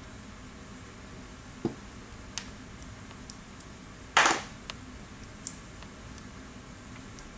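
Light clicks and taps of small steel parts handled as vanes are fitted into the slotted rotor of a pneumatic tool's air motor, with one louder, brief noise about four seconds in. A steady low hum runs beneath.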